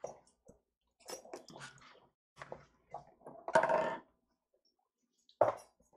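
Kitchen items being handled and set down on a countertop: an irregular run of knocks and clinks, the loudest a little past three and a half seconds in.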